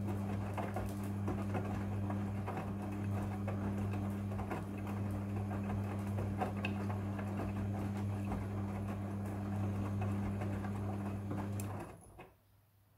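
Front-loading washing machine drum turning in the wash phase: a steady motor hum with the load sloshing and small knocks, cutting off abruptly near the end as the drum stops between turns.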